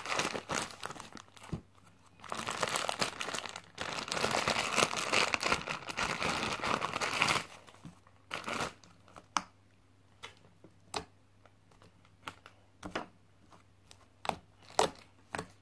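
Clear plastic zip bag crinkling as it is handled and opened, for about the first seven seconds, then a scattering of short clicks as the slime is handled.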